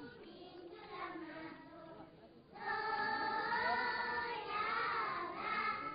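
A group of children singing together: faint at first, then louder and clearer from about two and a half seconds in, with long held notes.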